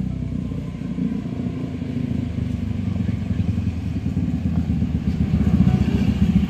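Small motorcycle engine running with a rapid pulsing note, growing louder toward the end.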